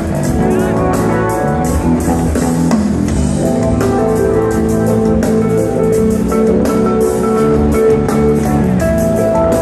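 A live jam band playing loud, with guitar, keyboards and drums over a steady beat, heard from the audience in a concert hall.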